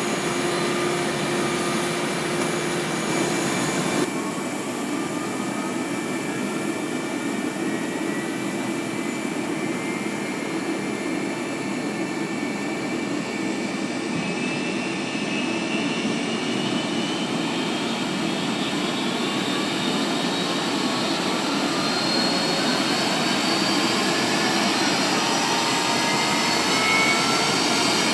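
Boeing 737-200's Pratt & Whitney JT8D jet engines spooling up during start: a steady jet whine with whistling tones that rise slowly in pitch and grow a little louder toward the end. A steady hum cuts off about four seconds in.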